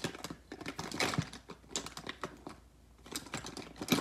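Hands rummaging through a fabric bin of makeup: small plastic tubes and cases clicking and clattering against each other in quick, irregular taps.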